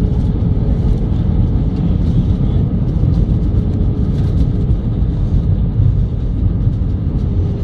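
Loud, steady cabin rumble aboard an Airbus A320 rolling fast along the runway on landing, heard from a window seat beside the engine.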